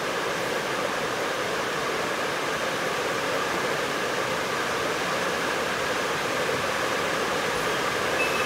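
A steady, even rushing noise with no breaks, knocks or bat strikes.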